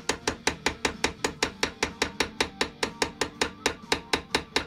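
Small ball-peen hammer tapping rapidly on the head of an old gun screw held in a bench vise, in a fast, even run of light blows at about seven a second. The blows peen the burred, hourglassed screw slot back into shape instead of filing it away.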